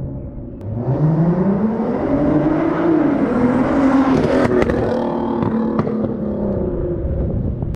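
Mk5 Golf R32's 3.2-litre VR6 engine revving: the pitch climbs for about two seconds, then falls back over the next few seconds, with a few sharp cracks partway through the fall.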